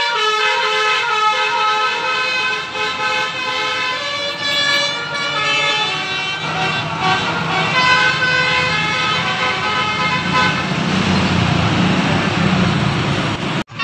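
Basuri telolet horns, multi-tone musical vehicle horns, playing stepping melodic tone sequences that answer one another. Engine and road noise with a low rumble grows louder in the second half, and the sound breaks off abruptly near the end.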